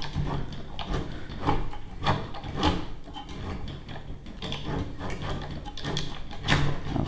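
Tubing cutter being turned around a copper pipe, its cutting wheel scoring into the tube in repeated scraping strokes about twice a second.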